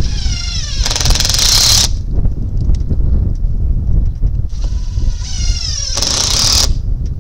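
Cordless impact driver driving screws into roof boarding, twice: each time the motor whine drops in pitch as it loads, then the impact mechanism hammers rapidly for about a second, near the start and again about six seconds in. Steady wind rumble on the microphone underneath.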